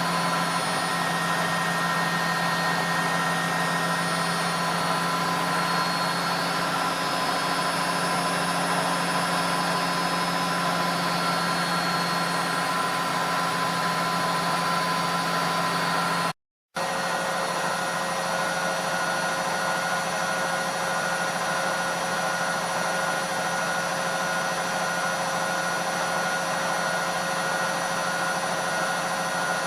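ELIN A 100 E washing machine running: a steady motor hum with a whine of several fixed tones. The sound cuts out for a moment about halfway through and comes back with a slightly changed pitch.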